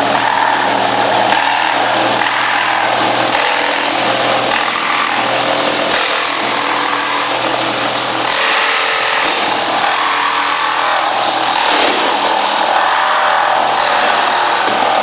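Ridgid Gen5x R8642N 18-volt cordless reciprocating saw running without a break as its blade cuts through wood full of nails. The sound shifts every few seconds as the blade bites.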